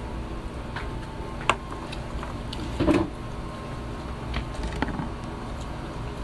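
Knocks and clicks of things being handled at a table over a steady low background hum: a sharp click about one and a half seconds in, a louder knock near three seconds, then a few lighter clicks.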